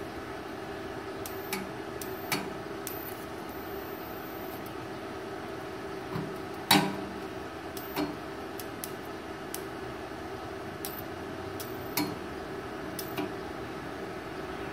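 Steady hum of an MMA 250A-SC inverter welding machine idling between TIG welds, with no arc burning, and a handful of short sharp ticks; the loudest comes about seven seconds in.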